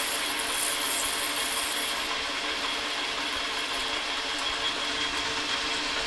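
Metal lathe running while a spring cutoff tool parts off 1-inch mild steel bar, a steady machine hum under a hissing cutting noise. The high hiss drops away about two seconds in.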